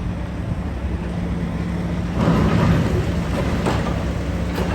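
Demolition excavators at work: heavy diesel engines running steadily, with a louder burst of noise about two seconds in and a couple of sharp knocks near the end.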